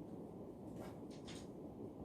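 Writing on paper: three short scratchy strokes about a second in, over a steady low room hum.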